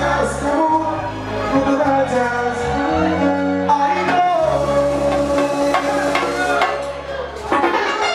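Live bachata band playing: guitar, keyboard, bongos and güira under a male lead singer, who slides down into a long held note about halfway through. The band thins out briefly just before the end.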